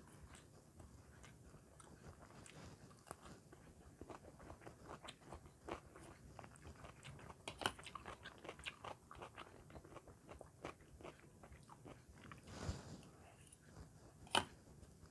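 Faint close-up eating sounds: a mouth chewing and crunching fried rice, with many small crackles and a couple of sharper clicks, one near the end.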